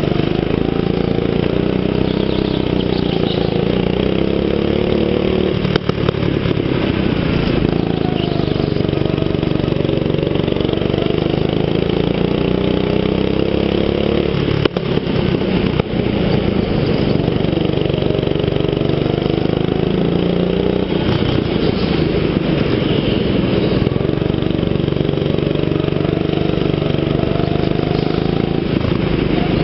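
Go-kart engine heard from on board, its pitch rising and falling over and over as the kart accelerates out of corners and lifts off for the next. A couple of brief sharp knocks come through about six seconds in and again about halfway.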